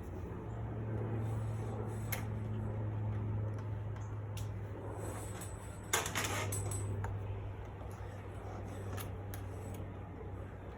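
Metal clicks and knocks of garage door hardware (cable, rollers, track) being worked on by hand, with one louder metallic clatter about six seconds in, over a steady low hum.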